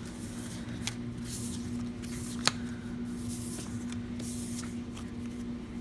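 Paper journaling cards being picked up and gathered into a stack on a wooden table: soft paper rustling and sliding, with a sharp tap about two and a half seconds in. A steady low hum runs underneath.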